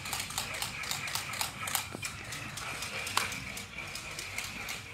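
Footsteps of people moving quickly across the floor: a rapid, irregular patter of light knocks over a faint steady high tone.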